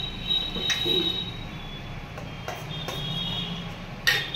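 Forks clinking and scraping against stainless-steel plates, with a few sharp knocks that each leave a brief high metallic ring; the loudest knock comes near the end.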